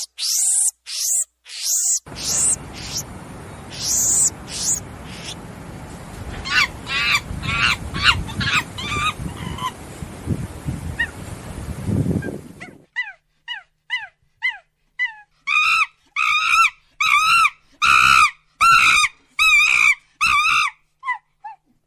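Monkeys calling: short, high-pitched calls at first, then more calls over a noisy background that cuts off abruptly about halfway, followed by a steady series of repeated wavering calls, roughly one and a half a second.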